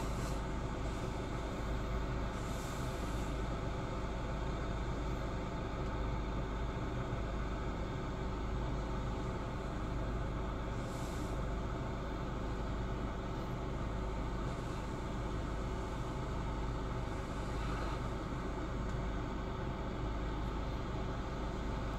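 Steady low engine hum with a constant drone, heard from inside a car cabin.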